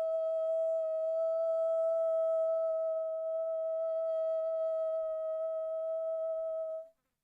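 A woman's voice holding one high, steady sung tone, vocal toning for sound healing, which cuts off abruptly near the end.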